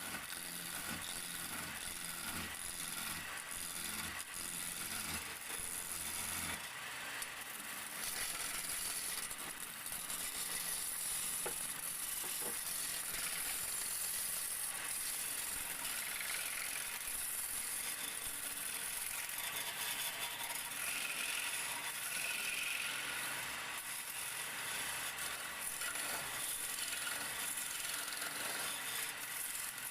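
Wood lathe running while a turning chisel cuts the spinning wood, a steady noisy cutting sound with some rattle.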